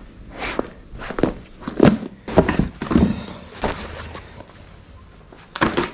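Rustling and soft knocks of an inflatable boat's floor panel, plastic wrapping and cardboard box being handled, in irregular strokes, quieter for about a second near the end before a last loud rustle.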